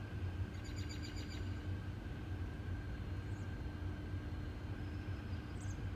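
A steady low hum runs throughout. About a second in, a bird gives a short, rapid, high-pitched trill, and there are a couple of brief faint chirps later.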